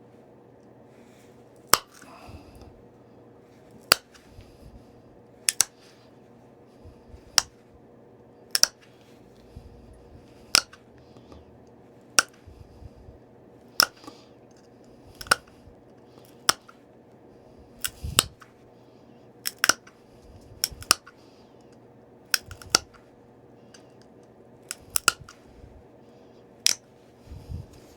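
Flakes snapping off a small stone point during flintknapping, likely pressure flaking: sharp clicks roughly every one to two seconds, some in quick pairs.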